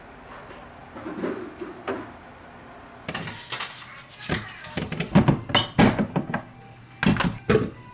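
Packaging being handled and opened: soft rustling at first, then from about three seconds in a busy run of rustles, clicks and light knocks.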